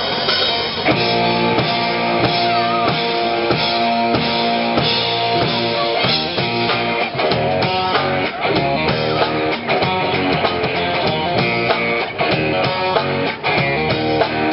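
Live rock band playing with two electric guitars, electric bass and drum kit: an instrumental passage of a rock song, the full band coming in about a second in.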